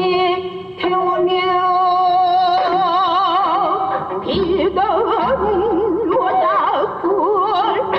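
Korean sinminyo (new folk song) music: a plucked-string accompaniment under a sustained melody line. The melody holds steady notes at first, then turns to a wide, wavering vibrato a few seconds in.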